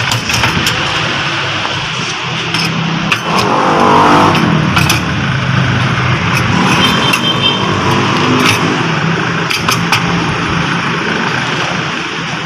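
Rebuilt car starter motor, fitted with new carbon brushes, spinning freely on a bench test with a steady whir, with scattered sharp clicks. The motor spins strongly, a sign that the brush repair has worked.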